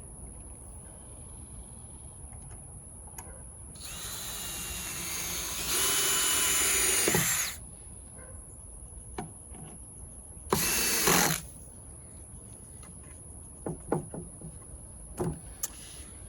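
Power drill driving screws into wood in two runs: a longer one whose motor whine builds and then cuts off, and a short burst a few seconds later. A few light knocks follow near the end.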